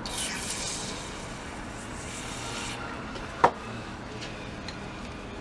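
WD-40 aerosol spraying into a ratchet in one hiss that stops sharply after under three seconds, flushing out the mechanism. A single loud, sharp clack follows about three and a half seconds in.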